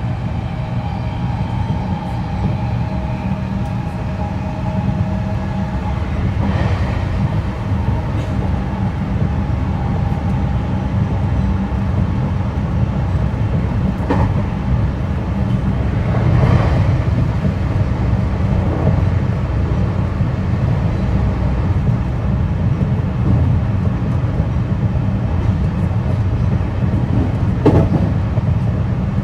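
JR West 225-5100 series electric train with a Toshiba IGBT inverter running, heard from inside a motor car: a steady low rumble of wheels on rail. A faint humming tone fades out about ten seconds in, and a few single sharp clacks stand out, the loudest near the end.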